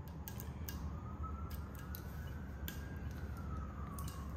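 Small scattered clicks and ticks from handling the safety seal on a quick-connect SodaStream CO2 canister as it is worked off, over a low steady hum. A faint tone slowly rises and then falls behind it.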